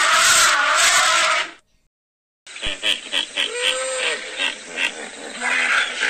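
African elephant trumpeting, a loud brassy blare that cuts off about a second and a half in. After a short silence, a greater one-horned rhinoceros makes grunting, snuffling sounds with one brief squeaky call.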